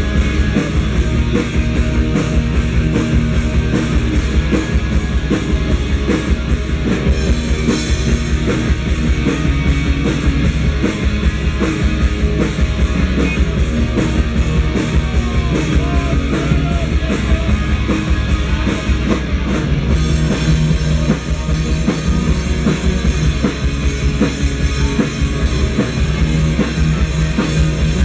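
Live rock band playing loud and steady: a drum kit keeping a driving beat under electric guitars and bass guitar.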